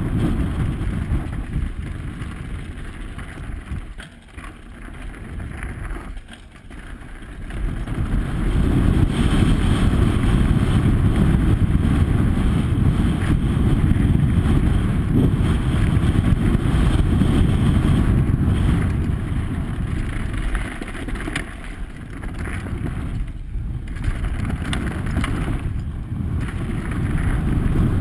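Wind buffeting the microphone of a helmet camera and mountain-bike tyres rolling over loose gravel and dirt on a fast downhill run, a dense low rumble. It eases off twice in the first seven seconds, then stays louder through the middle of the run.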